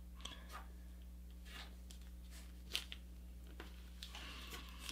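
Faint rustling and crinkling of paper being folded and creased by hand, with a few soft ticks, the sharpest a little past halfway.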